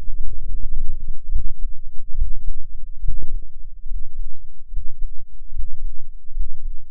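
A human heartbeat picked up through a stethoscope-chestpiece microphone: regular low thumping, about one beat every 0.8 seconds.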